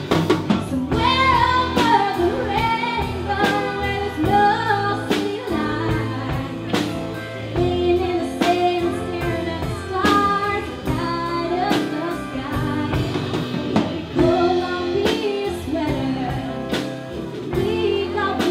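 Live band playing a song with a sung lead vocal over drums and accompanying instruments.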